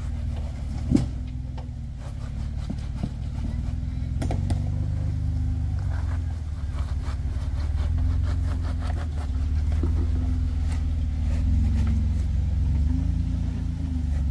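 Jeep Wrangler's engine running steadily at low revs, with a sharp knock about a second in and scattered light clicks and knocks.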